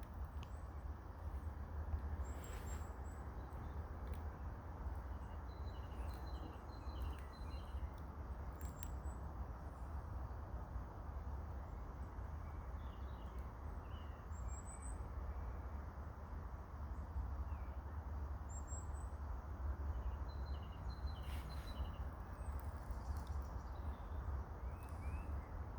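Outdoor ambience: a steady low rumble and hiss, with faint, short bird chirps at scattered moments and a few brief clicks.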